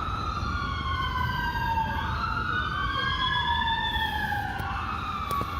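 Emergency vehicle siren wailing, its pitch rising and falling slowly, with a second wail overlapping it. Under it runs a low traffic rumble.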